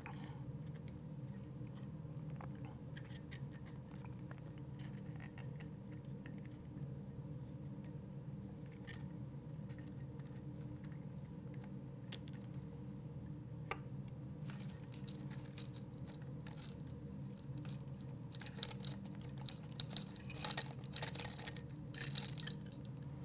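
Faint, scattered clicks and light metal scrapes of engine parts being handled as a base gasket is worked down over the cylinder studs past the piston and cam chain, over a steady low hum. The clicks come more often near the end.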